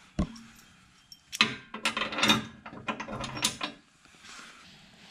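Steel bolts and washers being fitted to a spreader mounting bracket. A single knock comes just after the start, followed by a quick run of sharp metallic clicks and knocks for about two seconds.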